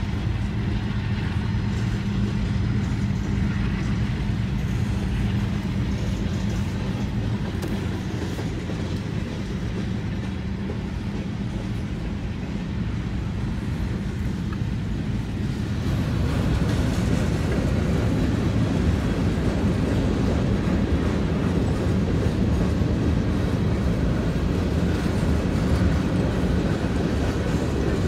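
Freight train boxcars rolling past, steel wheels clicking and rumbling over the rail, heard from inside a car, with a steady low hum underneath. The rolling noise grows louder and fuller about halfway through.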